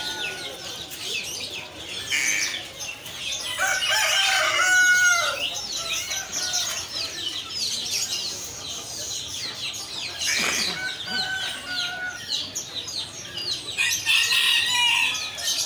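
Roosters crowing a few times and hens clucking, over a constant chatter of many small caged birds chirping.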